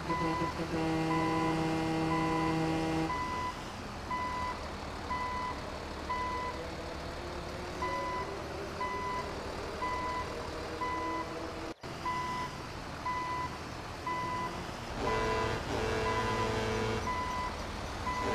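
Truck reversing alarm beeping about twice a second over steady vehicle engine noise, with a held horn-like tone for the first three seconds.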